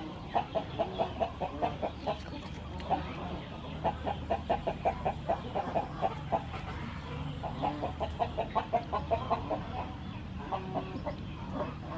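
A chicken clucking in quick runs of short notes, about seven a second, breaking off and starting again several times.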